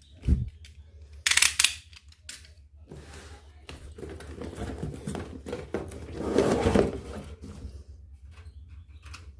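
Toy packaging being opened by hand: a soft thump, a loud scratchy burst about a second and a half in, then a stretch of crinkling and rustling that is loudest about two-thirds of the way through.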